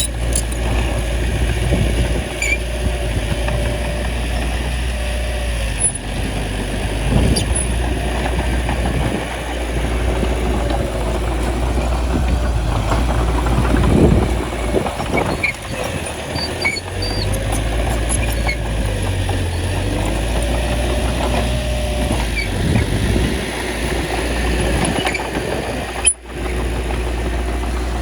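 Bulldozer's diesel engine running steadily, its pitch rising and falling slightly as it works, with a few light metallic clicks. The sound drops out briefly near the end.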